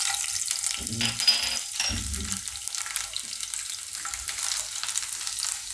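Fresh garlic cloves and fenugreek seeds sizzling and crackling in hot oil in a nonstick kadai, the tempering (vaghar) stage of the dish, stirred with a silicone spatula. There are a couple of soft low bumps about one and two seconds in.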